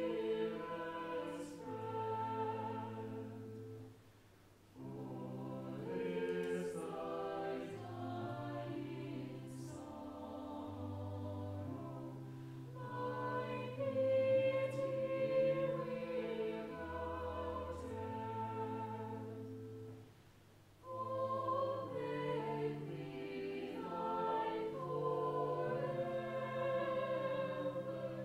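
Church choir singing with organ accompaniment, sustained sung lines over steady organ bass notes, with two brief pauses between phrases.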